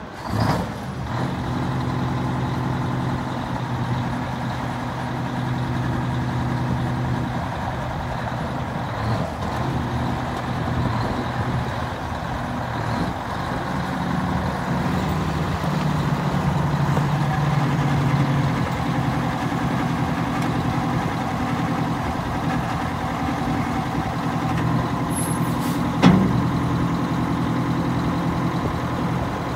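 1984 Western Star dump truck's diesel engine running steadily, its engine speed shifting up and down a few times. Near the end there is one sudden sharp sound.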